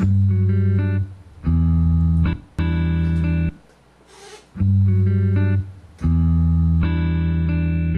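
Instrumental intro of a recorded song: guitar chords played in short phrases about a second long, with brief breaks between them.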